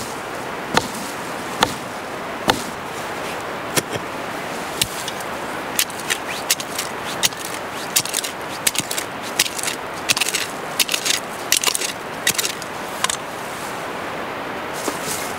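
A small blade digging into dry soil: sharp strikes about once a second at first, then a quicker run of short chops and scrapes through the middle, over a steady background hiss.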